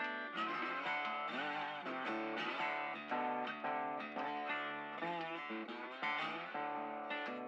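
Background music: guitar playing a run of plucked notes.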